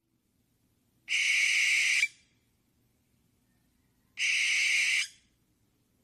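Owl screeching: two harsh screeches, each about a second long, about three seconds apart.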